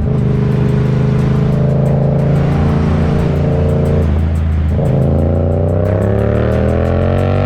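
Motorcycle engine running under load, then a break in the note about four to five seconds in, like a gear change, after which the pitch climbs steadily as the bike accelerates.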